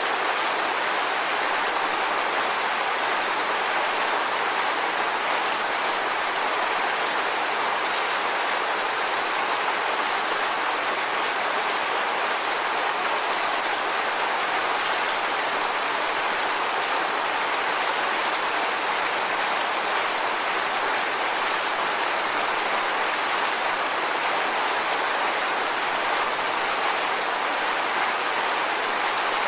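Waterfall: a steady, even rush of falling water with little low rumble and no changes.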